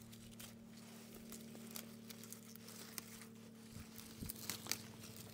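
Young grapevine shoots being pulled off the trunk by hand, with vine leaves rustling: faint, scattered crackles and snaps, a few sharper ones near the end. A faint steady hum runs underneath.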